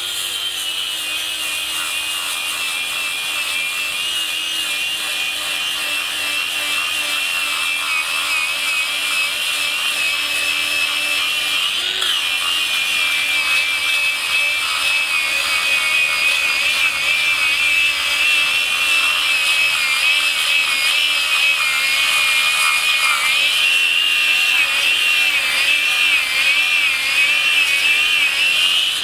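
ToolPRO 18V brushless cordless angle grinder with a flap wheel sanding wood: a continuous high motor whine that wavers in pitch as the disc is pressed into the work, with the rasp of the abrasive rubbing the wood over it.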